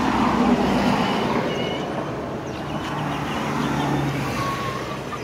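Road traffic on a highway passing by: a steady rush of vehicle noise that swells near the start and again about four seconds in.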